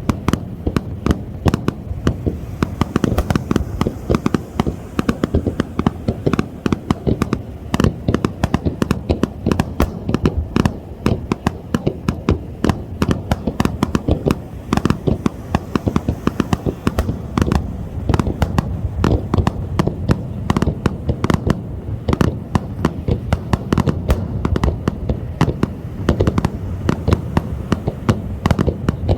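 Aerial fireworks display: a dense, continuous barrage of bangs and crackling reports, several per second, over a low rumble.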